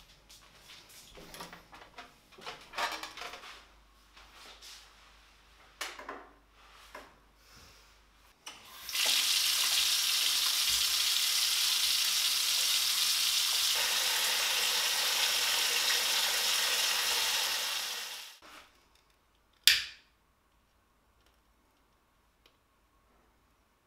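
Water running from a chrome bath mixer tap into a bathtub: a steady rush that starts about nine seconds in and cuts off about nine seconds later. Before it, a few light knocks and clicks of handling; after it, one sharp click.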